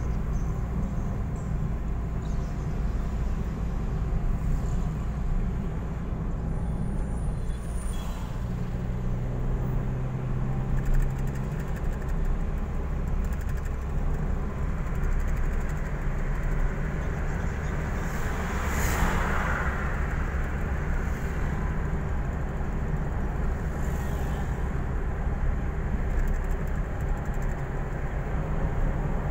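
Steady engine and tyre rumble of a moving car heard inside its cabin, with a brief rushing swell that rises and fades about two-thirds of the way through.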